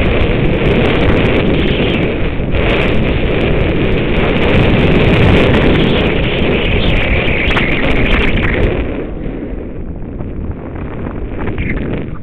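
Wind buffeting the microphone of a helmet camera on a snowboarder riding downhill, mixed with the board scraping over the snow, with a few sharp knocks. It eases off about nine seconds in as the rider slows.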